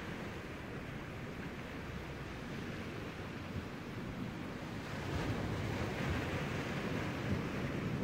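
Small sea waves washing in over a rocky shore, foaming and swirling around the boulders. The surf swells a little louder about five seconds in as a larger wave comes in.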